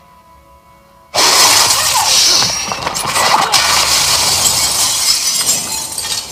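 A sudden loud blast about a second in, then glass shattering and debris crashing and clattering down for several seconds: a film sound effect of part of a house being blown apart.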